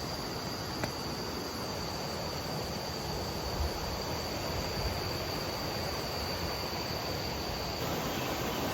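Waterfall rushing as a steady, even noise, with an insect buzzing on one high steady pitch over it that cuts off near the end.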